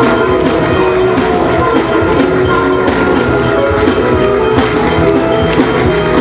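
Music with percussion: sustained notes over a busy run of drum and hand-percussion strokes.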